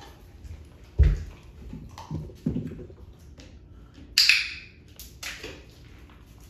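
A puppy's paws thudding and claws clicking on a small wooden board and a hard plank floor, with a heavy knock about a second in and a sharp clatter about four seconds in.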